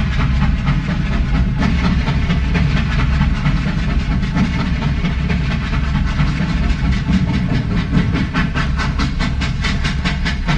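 Steam train running: a steady low rumble with hiss, and a fast rhythmic beat that grows clearer in the second half.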